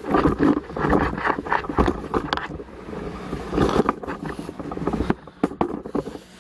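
Handling noise from a handheld camera being carried: irregular rubbing and scraping with many small knocks.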